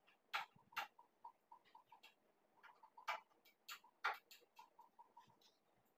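Faint, sharp clicks and light taps at irregular intervals, from hands working at a wooden bed frame and its cord. Under them runs a faint, quick, even ticking of about five a second.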